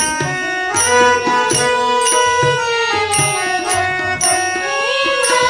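Marathi devotional abhang music: a melody line gliding slowly up and down over a steady drum beat, with small-cymbal strikes falling evenly on the beat.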